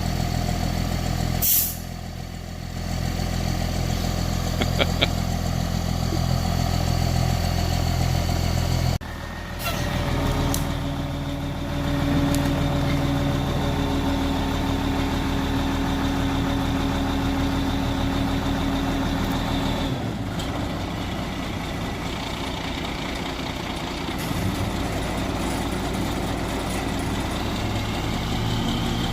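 A large engine running steadily, its pitch and load shifting several times. A short hiss comes about a second and a half in, and a few light clicks near five seconds.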